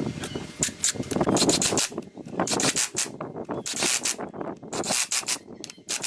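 Repeated rubbing strokes by hand against a surface, coming in irregular runs with short pauses.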